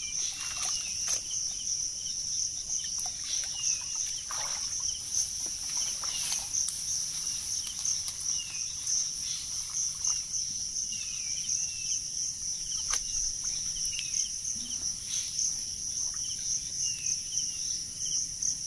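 A steady, high-pitched chorus of insects, with short chirping bird calls repeating every second or so over it. A few brief splashes of hands working in shallow muddy water come and go.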